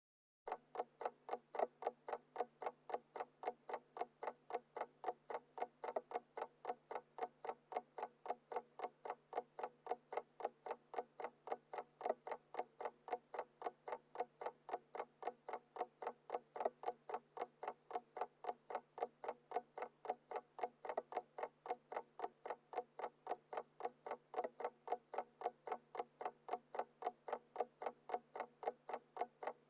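Alarm clock ticking steadily, with rapid, even ticks at about four a second, starting about half a second in.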